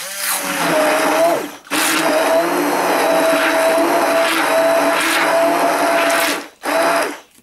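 Hand-held immersion blender running in soft watermelon pulp, a steady motor whine. It cuts out briefly about one and a half seconds in, runs again for about five seconds, stops, and gives one short burst near the end.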